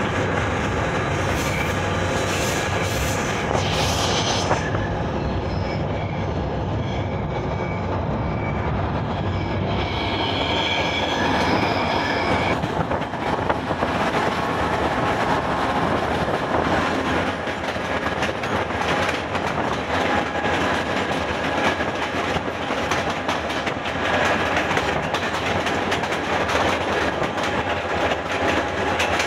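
Ferromex freight train, its ES44AC diesel locomotives and then a string of freight cars, passing close alongside on the next track: a steady rumble and clickety-clack of steel wheels on rail. High steady tones sound over it through roughly the first twelve seconds.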